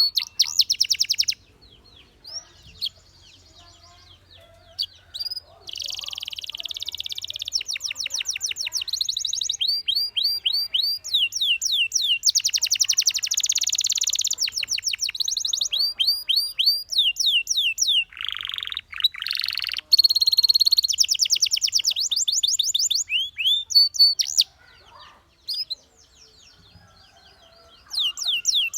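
Canary singing in phrases of rapid high trills and repeated chirps, with pauses of a few seconds shortly after the start and again near the end. About two-thirds through comes a denser, rasping phrase.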